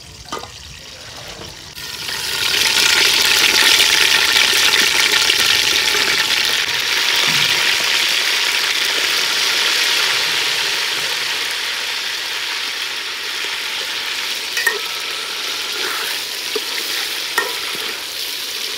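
Raw chicken pieces sizzling in hot ghee in an aluminium pot. The sizzle starts about two seconds in as the meat goes in, then slowly eases. Near the end a metal ladle stirring the pieces clinks twice against the pot.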